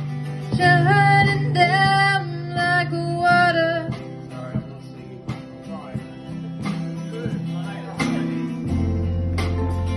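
Live acoustic band music: a strummed acoustic guitar over steady low bass notes, with a voice singing a melody for the first four seconds or so. The bass moves to a lower note near the end.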